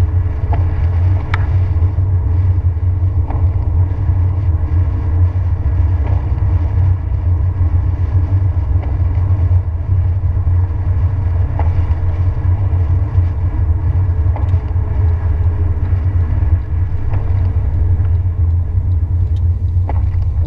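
Car cabin noise while driving on a wet road: a steady low rumble of tyres and engine, with a faint tick about every three seconds from the windshield wipers.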